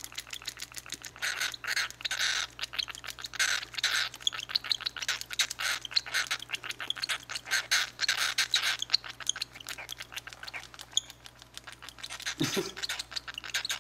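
Baby cockatiel giving its food-begging calls while being syringe-fed formula: a rapid, continuous train of short raspy chirps.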